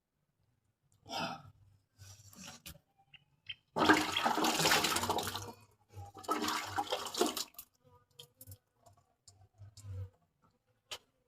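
Water rushing and splashing in two bursts of a second or two each, about four and six seconds in, with a few shorter, fainter splashes before them.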